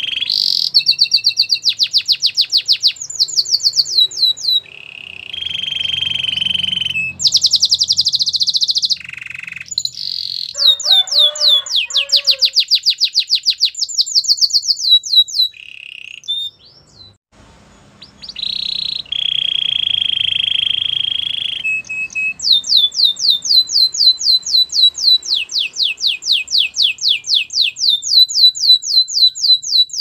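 A canary singing: long, fast trills of repeated falling notes, about five a second, broken by a few held notes and a brief pause a little past halfway.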